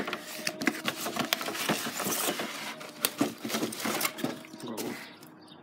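Cardboard box and its packing being handled: a dense run of rustling, crinkling and scraping with many small clicks, opening with one sharp knock and dying down near the end.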